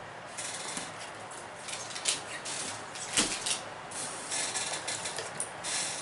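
Boxed toy packaging being handled and set down, with irregular rustling and several sharp clicks and knocks; the sharpest comes about three seconds in.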